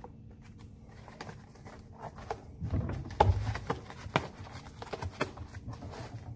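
Handling noise: scattered knocks and taps as a slit foam pipe-insulation sleeve is worked onto the steel handle of a converted barbell, with a few heavier thumps about three seconds in.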